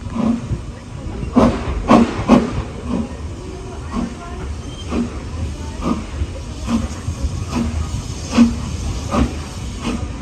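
A moving train: a steady low rumble with a regular beat of sharp strokes, about one every 0.8 s.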